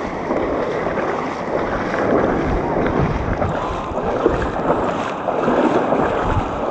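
Sea water sloshing and surf washing close to the microphone, with wind buffeting it.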